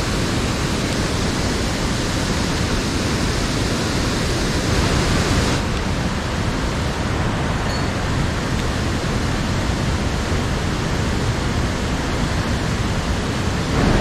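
Steady rushing of a mountain stream, with water pouring over a low weir; the hiss eases slightly about five and a half seconds in.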